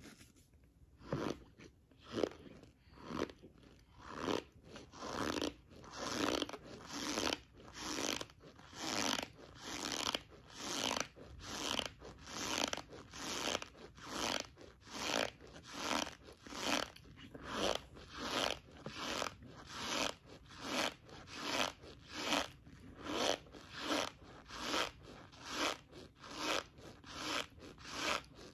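A mouthful of cornstarch being chewed close to the microphone: an even run of crunches, about three every two seconds.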